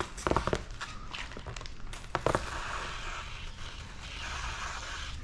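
Pump sprayer misting tack solution under paint protection film: a few clicks and taps in the first half, then a steady hiss of spray that starts about halfway in.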